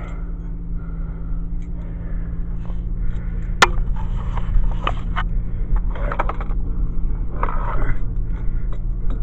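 A car running with a steady low engine and road hum, with one sharp click about three and a half seconds in and a few scraping rattles.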